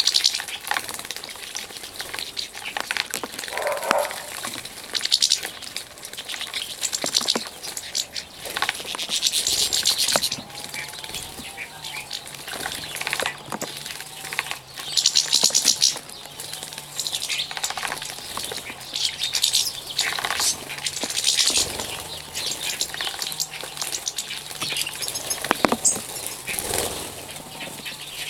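Small finches (European goldfinches and a serin) bathing in a shallow basin: repeated bursts of splashing and wing-fluttering as they flick water over themselves, every few seconds. A few chirps come in between.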